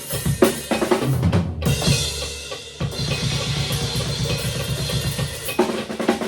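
Rock drum kit played alone: bass drum, snare and cymbal hits, with a long stretch of ringing, washing cymbals over steady bass-drum work in the middle.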